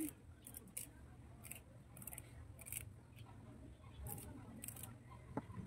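Moringa (malunggay) leaves being stripped off their stems by hand: faint, crisp rustling snips as the leaflets snap off, coming in short bursts about one or two a second.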